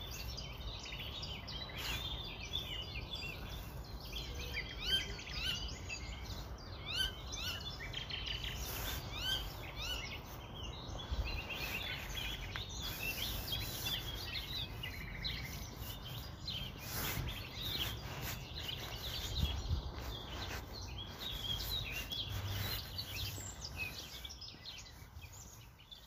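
Many small birds chirping together in a dense, continuous chorus of short, high chirps, fading out near the end.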